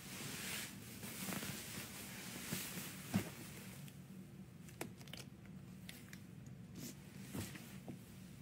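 Handling noise close to a phone's microphone: rustling and rubbing for the first few seconds with a sharper tap about three seconds in, then scattered light clicks and ticks.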